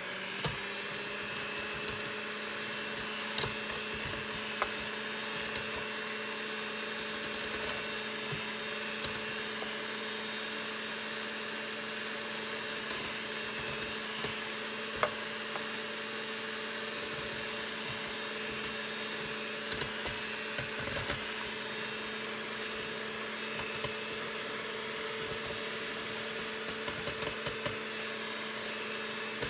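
Electric hand mixer running steadily at a constant pitch, its beaters whisking an egg-and-milk mixture in a stainless steel bowl. A few short clicks sound over the hum.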